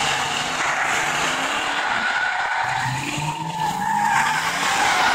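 Box Chevy with a 355 small-block V8 doing donuts: the engine revs hard while the rear tires squeal steadily on the pavement. The engine note rises and falls as the car circles, getting a little louder as it swings close about four seconds in.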